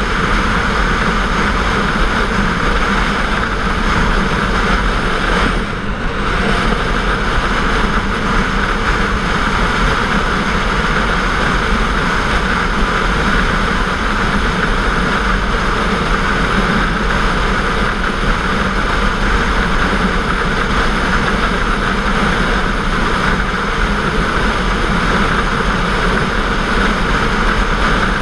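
Sport motorcycle cruising at road speed: steady engine running and rushing wind noise, with a brief dip in level about six seconds in.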